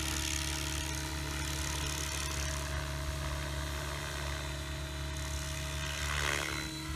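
Align T-Rex 700E electric RC helicopter in flight in idle-up, its main rotor and brushless motor running at a raised head speed with a steady whine. The sound swells briefly about six seconds in.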